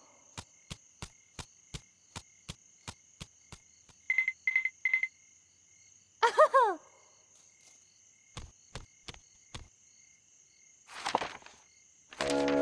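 Night ambience of crickets: a steady high trill, with three short chirps about four seconds in. Over it, a run of evenly spaced sharp ticks, about three a second, for the first three and a half seconds; a short falling tone about six seconds in; a few soft knocks and a brief swish later. Music starts near the end.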